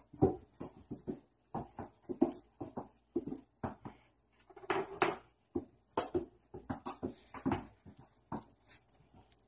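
Poodle in dog booties stepping about on a tile floor, its booted paws making irregular soft clicks and scuffs, with a couple of short whimpers.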